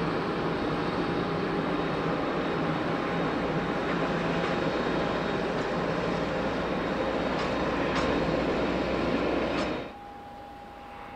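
Jet engines of a Boeing 767-300ER airliner running at taxi power as it taxis past, a steady rumble. About ten seconds in the sound cuts off abruptly, leaving a much fainter steady hiss with a thin whine.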